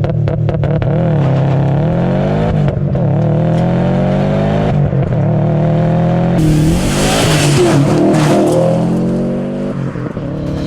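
Car engine running and revving, its pitch rising and falling, with a burst of hiss about two-thirds of the way through.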